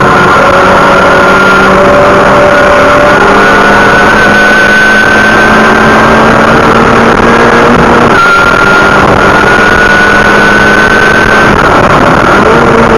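BMW engine heard from inside the cabin under hard acceleration down a straight, loud over road and wind noise. Its note climbs steadily, drops with an upshift about eight seconds in, climbs again, then falls near the end as the driver comes off the throttle.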